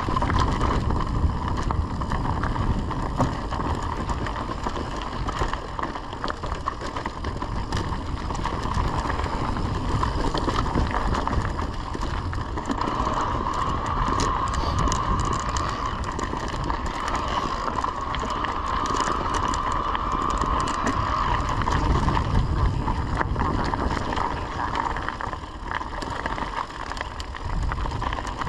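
Mountain bike rolling along a narrow gravel singletrack: tyres crunching over stones, with the bike's parts rattling and clicking over the bumps. A steady whine runs through it, stronger through the middle.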